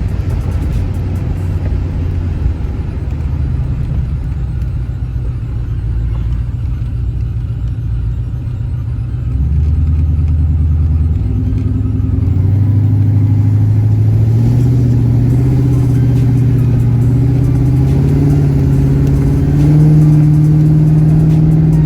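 LS V8 running through a Hooker BlackHeart 3-inch header-back exhaust with long-tube headers, steady at first. From about halfway it grows louder and climbs in pitch as the engine speeds up.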